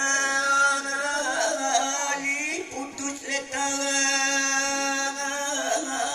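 A man singing a slow, chant-like melody in long drawn-out notes, the longest held for nearly three seconds, over a steady low held tone.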